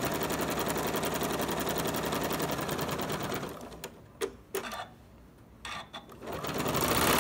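Janome sewing machine stitching a seam at a steady fast rhythm. It stops about halfway through, a couple of short clicks follow, and it starts stitching again near the end.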